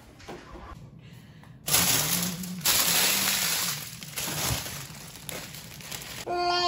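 A plastic bag of frozen food crinkling and rattling as it is pulled out of a freezer and handled, loud in several spells from about two seconds in.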